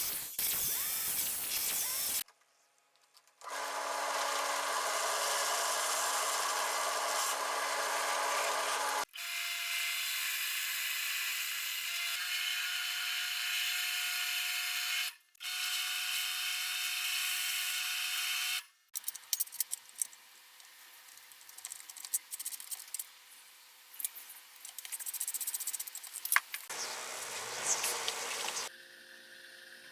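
A power tool running steadily in several short, abruptly cut clips, its pitch differing from clip to clip. Near the end come quieter, scattered clicks and handling sounds.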